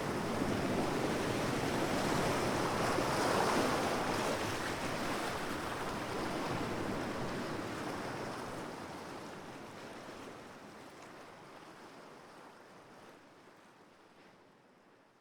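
Calm sea waves washing onto a beach, one swell rising about three seconds in, then the wash fades steadily away to near silence by the end.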